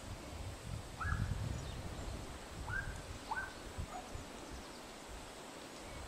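Footsteps on a forest path, with a few short, high calls from a bird: one about a second in, then three close together around three to four seconds.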